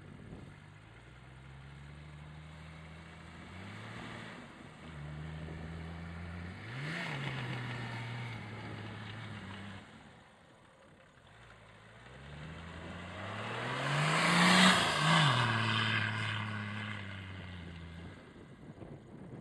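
Nissan Patrol GR Y60's 2.8-litre straight-six turbodiesel revving up and down in two bursts while the four-wheel-drive slides on snow. The engine drops away a little past halfway. The second burst builds to the loudest point about three-quarters of the way in, joined by a rush of tyres spinning and throwing snow, then falls away near the end.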